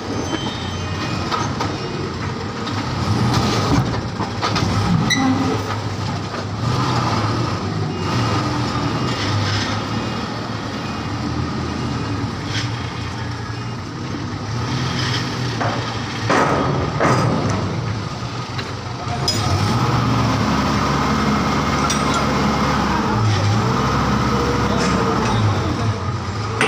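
Engines of trucks and cargo-handling machinery running, with a few sharp metal clanks. The engine note steadies and grows a little louder about two-thirds of the way through.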